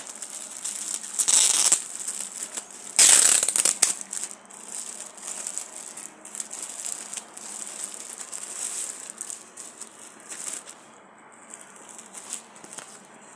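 Plastic clothing packaging being opened and handled, rustling and crinkling, with two louder bursts of crinkling about one and three seconds in and fainter crackles after.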